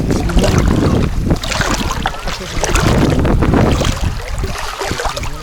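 Wind buffeting the microphone over shallow sea water sloshing and lapping. The wind gusts hardest in the first couple of seconds, then eases.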